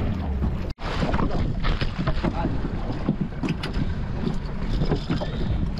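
Water slapping and splashing against the side of a small fishing boat, with wind rumbling on the microphone and scattered knocks. The sound cuts out for an instant a little under a second in.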